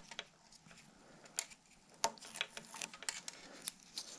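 Small clicks, taps and rustles of hands working tape-wrapped cable ends against a bicycle frame, with a sharper click about two seconds in.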